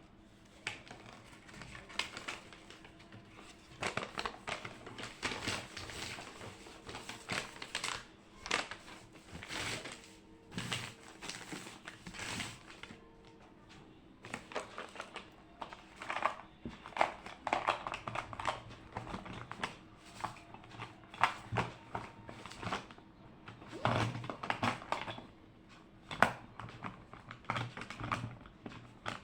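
Irregular small taps, clicks and rustles from someone working at a desk, with a steady low hum underneath.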